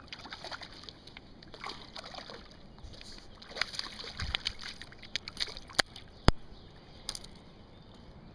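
A freshly caught smallmouth bass splashing at the water's edge as it is landed, with irregular sloshing and scattered sharp clicks and knocks, the loudest about six seconds in.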